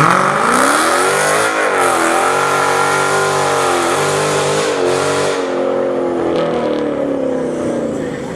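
Car engine revving under acceleration: its pitch climbs at the start, dips briefly a few times and slowly sinks, then cuts off suddenly.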